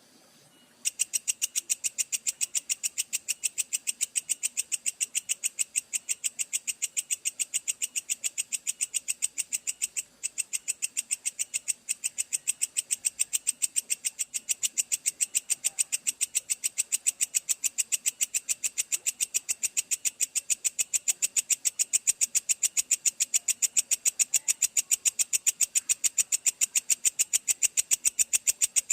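Belalang kecek katydid calling in a long, fast, even train of sharp high chirps, about four a second, starting about a second in and breaking off briefly twice.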